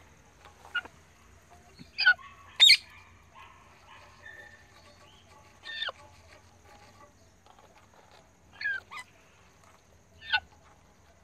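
Parrots calling: about seven short, sharp squawks, each sliding down in pitch, the loudest about two and a half seconds in, with softer chattering between them.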